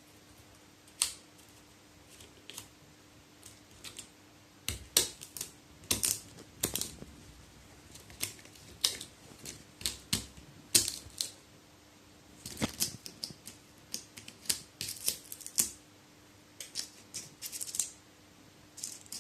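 A crow's beak pecking and tapping at something hard: irregular sharp taps, often in quick clusters of several, over a faint steady hum.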